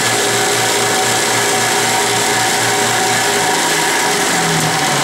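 Dayton 2x48-inch belt sander with a 1/2 hp capacitor-start motor running at speed: a loud, steady, noisy machine sound with a low hum that pulses about four times a second. Part of the noise is the metal base resonating.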